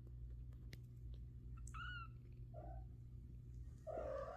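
Two-week-old kittens mewing: a thin, high mew that falls in pitch a little under two seconds in, a short lower mew soon after, and a louder mew near the end.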